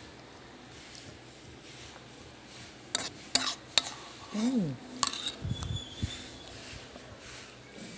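Metal spoon clinking and scraping against a bowl and plate, a few sharp clinks in quick succession about three seconds in and more near five seconds, with a short falling tone between them and a low thump after.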